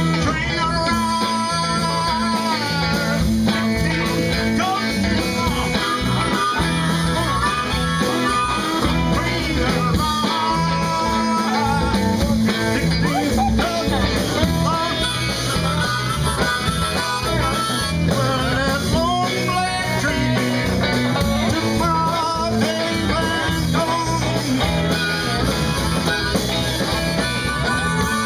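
Live blues-rock band playing, with an electric guitar taking a lead line of bent notes over bass guitar and drums.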